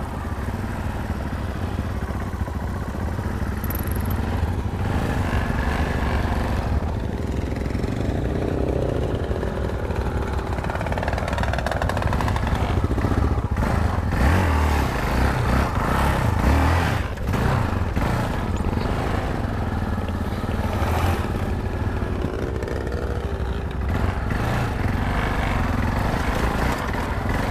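Yamaha XT 660Z Ténéré's single-cylinder engine running steadily as the bike is ridden along a dirt track, with wind rushing over the helmet-mounted microphone.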